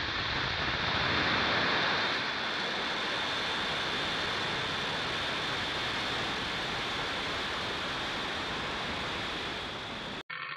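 Falcon 9 rocket's nine Merlin first-stage engines at liftoff: a steady, loud rushing noise of rocket exhaust, slightly stronger a second or two in. It cuts off sharply near the end.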